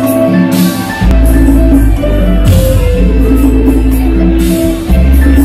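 Live mor lam band playing an instrumental passage: a steady bass line under a keyboard melody, with drum kit and three cymbal crashes.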